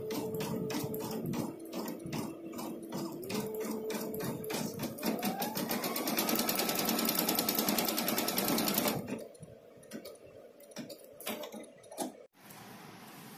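Brother embroidery sewing machine stitching, first at about four stitches a second, then speeding up with a rising motor whine into fast, dense stitching that stops abruptly about nine seconds in. A few separate clicks follow.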